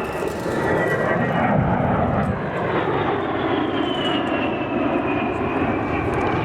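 A-10 Thunderbolt II's twin turbofan engines running loud as the jet flies past, a high whine sliding down in pitch through the middle of the pass.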